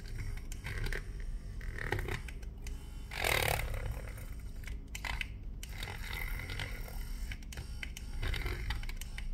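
Thin metal pick scraping old double-sided adhesive tape off the edge of an iPhone back cover: light, irregular scratching and clicking, with a louder scrape about three seconds in.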